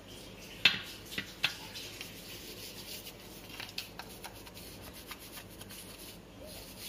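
Toothbrush bristles scrubbing the fine wire mesh of a stainless-steel tea strainer, a run of short scratchy strokes working out tea dust lodged in the mesh. A few sharp clicks come between about half a second and a second and a half in, the first the loudest.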